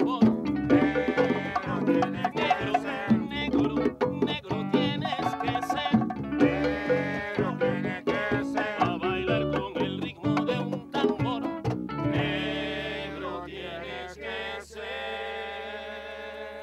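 Afro-Peruvian music played live, cajón strikes under strummed guitar, coming to its end: the drumming stops about twelve seconds in and a final chord is held, ringing and slowly fading.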